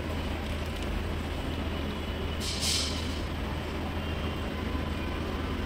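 Steady low electrical hum with a fan-like noise from the soldering bench, with one short hiss about two and a half seconds in.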